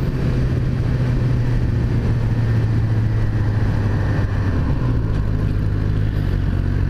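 Suzuki GSX-R 600's inline-four engine running steadily under way, with wind and road noise. The engine note dips slightly in pitch about five seconds in.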